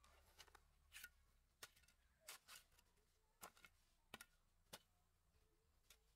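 Hand hoe chopping into clumpy garden soil: a quiet series of short, sharp strikes and scrapes, roughly one or two a second, some coming in quick pairs.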